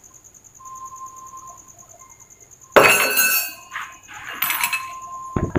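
A sharp metallic clatter about three seconds in that rings briefly, then a smaller clink and a short click near the end: metal tools or parts being handled and knocked together during motorcycle clutch reassembly.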